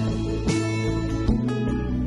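Background music: guitar strummed in a steady rhythm, a strum about every second.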